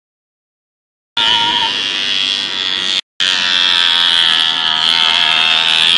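Silence for about the first second, then a small two-stroke moped engine of an off-road Mofa running at high revs with a high, buzzing note, its revs rising and falling a little. The sound breaks off for an instant about three seconds in and picks up again.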